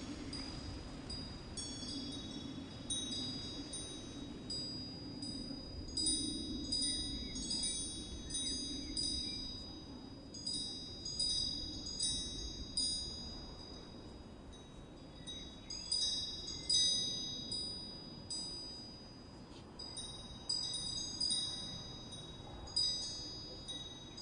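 Wind chimes ringing irregularly, many high metal notes struck and overlapping, over a steady low rumble.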